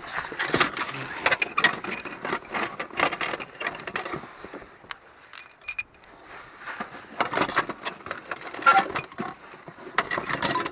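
Loose metal mounting bolts and small scrap car parts clinking and rattling as they are handled and tossed, in two busy flurries with a lull in the middle, where a few pieces ring briefly.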